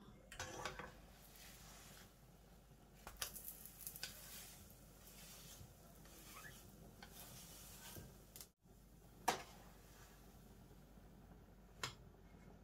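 Faint scraping and clicking of a plastic spatula against a non-stick frying pan as a pancake is turned and lifted out, with a sharp clack about nine seconds in and a lighter one near the end.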